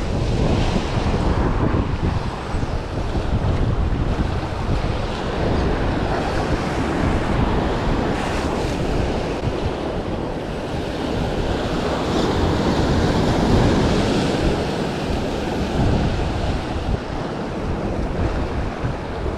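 Ocean surf breaking in repeated swells, with wind buffeting the microphone.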